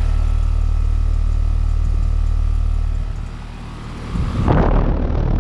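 2021 Carrier Sentry 3.5-ton straight-cool condensing unit running: a steady low hum from its Copeland scroll compressor and condenser fan. Near the end a louder rush of noise comes in over the hum.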